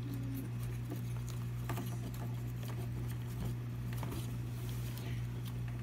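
Light clicks and scratching of small plastic parts being handled as a 3D-printed plastic screw is hand-tightened into a knob, over a steady low hum.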